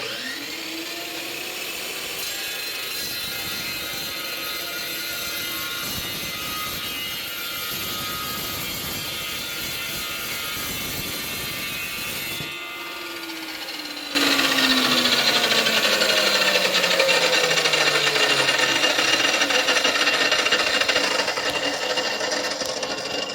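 Metal-cutting chop saw spinning up and running free, then, about 14 seconds in, cutting through 3/16-inch steel angle iron. The cut is much louder, and the motor's pitch sinks steadily as the blade loads up. The sound stops near the end. The saw is really loud.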